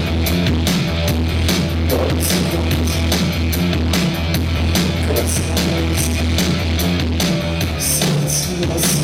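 Live band music played loud: a heavy bass and a steady drum beat under the instrumental intro of a rock song, with no vocals yet.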